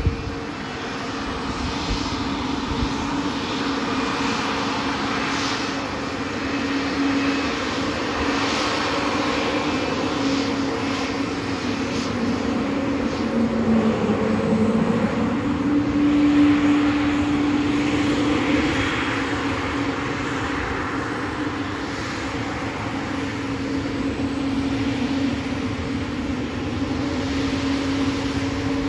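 Airbus A220's Pratt & Whitney PW1500G geared turbofans running at taxi power as the jet turns onto the runway. A steady engine drone with a low hum whose pitch dips about halfway through and then rises again.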